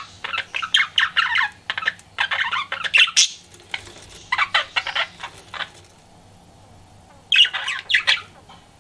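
Pet budgerigar chattering and warbling in rapid bouts of squawky chirps, with a pause of over a second before a last short burst near the end.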